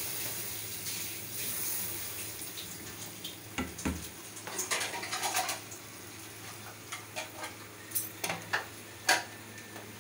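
Water poured into a hot pot of frying chicken masala, hissing and fading over the first couple of seconds. Then a run of knocks and clatters of cookware, the loudest near the end.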